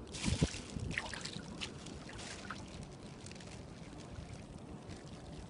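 Water splashing with a couple of dull knocks at the start, then water trickling and dripping in short scattered drops for about two seconds before it settles to a steady low background.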